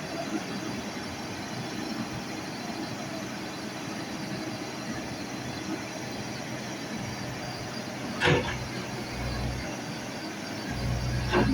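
Excavator's diesel engine running steadily, its low drone rising and falling, with two loud metallic clanks about three seconds apart, the second near the end.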